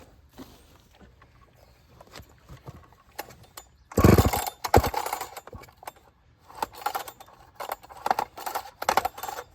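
Recoil starter of a ported 70cc Partner P70 chainsaw being pulled without the engine firing: one loud pull about four seconds in, then several shorter pulls near the end. The starter has broken: it has come loose so the rope no longer catches on the pawls.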